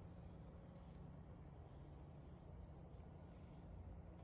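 Faint, steady trilling of crickets, held on one unbroken high note, over a low rumble.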